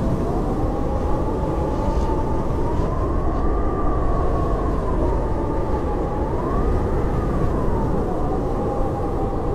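Howling blizzard wind: a steady rush with a whistling howl that slowly rises and falls in pitch.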